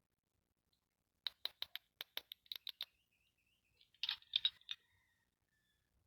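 Plastic toy doctor-set pieces being handled: a quick run of about ten sharp clicks, then a short, denser cluster of clicks about a second later.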